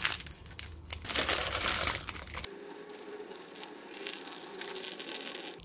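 A plastic seasoning packet crinkling and rustling as powdered soup base is shaken into an instant noodle cup. From about halfway there is a steady pour of hot water from a kettle into the cup.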